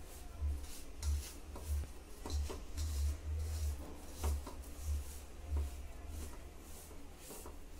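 A hand rubbing and tossing dry flour mixed with a little oil in a steel plate. Soft rubbing and scraping strokes repeat about once or twice a second, each with a low bump.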